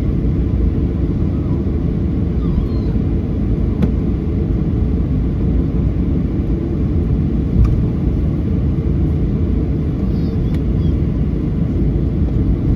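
Steady low cabin rumble inside a Boeing 737-800 from its CFM56 engines and airflow, holding level without spooling up, with a couple of faint clicks.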